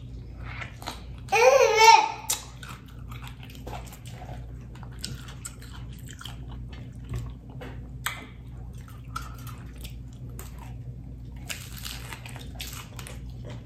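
Close-up chewing and biting of a crisp fried taco shell, with small wet clicks and smacks throughout and a louder crunchy bite near the end. A short voice sounds about two seconds in.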